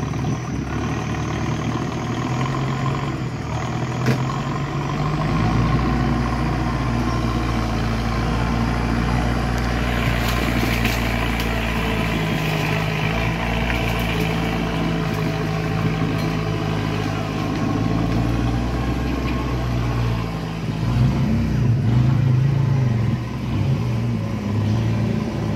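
Off-road 4x4's engine running steadily under load, then revving up and down for the last few seconds.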